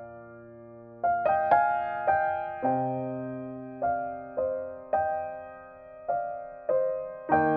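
Background music: a gentle solo piano piece, single notes and chords struck every half second to a second and a half, each ringing and fading away, with a short pause near the start.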